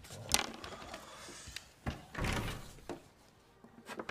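Handling noise on a drawing table: a sharp knock about a third of a second in, then a longer sliding, scraping sound about two seconds in, and a few light clicks, as drafting tools and paper are moved.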